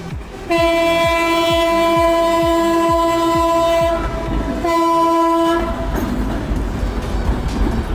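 Diesel locomotive horn sounding a long blast of about three and a half seconds, then after a short break a second blast of about a second, over the low rumble of the 2TE10M-K's diesel engine and its wheels on the rails.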